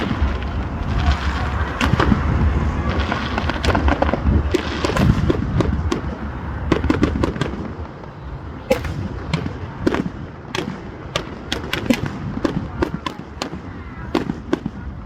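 Fireworks display: continuous low rumbling bangs in the first half, then many sharp crackling pops in quick succession through the second half.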